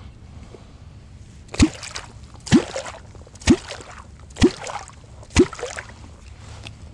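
Wooden catfish kvok struck into the water surface five times, about once a second, each stroke a deep plop with a splash, the call used to draw a catfish up toward the bait.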